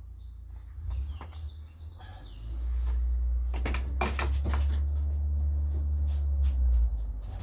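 A metal door latch clicking and rattling, with a cluster of sharp clicks about four seconds in and scattered clicks after. Under it, a low rumble rises about two and a half seconds in and drops away near the end.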